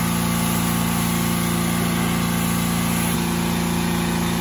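Pressure washer engine running steadily at a constant pitch while the house siding is being sprayed.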